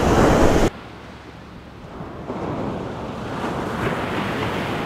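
Wind buffeting the microphone, which cuts off suddenly under a second in. Then ocean surf washes onto the beach, growing a little louder about two seconds in.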